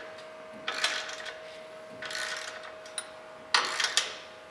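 Socket ratchet clicking in three short strokes about a second and a half apart as it runs a lock nut down on a bolt.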